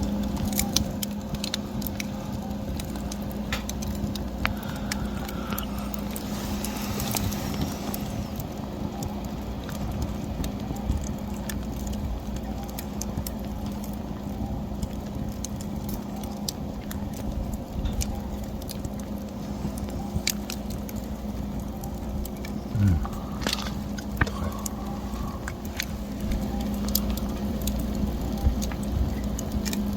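Wood fire crackling, with irregular sharp snaps and pops over a steady low hum.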